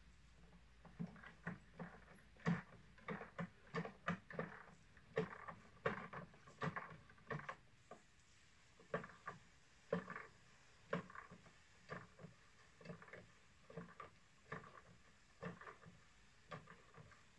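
Manual lever-pump backpack sprayer being worked while spraying fruit trees. The pump lever makes short, repeated creaking knocks, roughly two a second, starting about a second in.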